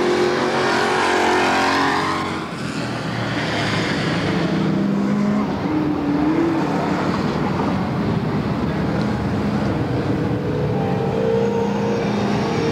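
Dirt-track stock car engines running hard around the oval. The engine notes rise and fall as cars pass in the first couple of seconds, then settle into a steady drone of the field circling.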